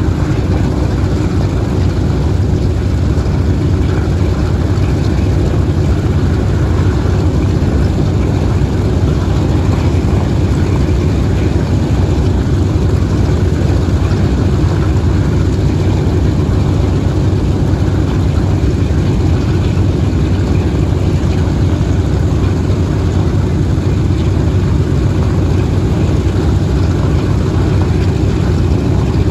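Boeing B-17G Flying Fortress's Wright R-1820 Cyclone radial engines idling with a steady, deep rumble.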